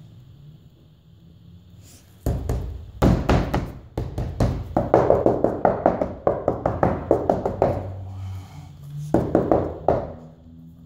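Gloved hand rapidly tapping and patting on laminate flooring around a foam-injection hole, over a soft spot where the boards lie on an uneven underlayment. It comes as a long run of quick taps, about four a second at its busiest, then a short second run near the end.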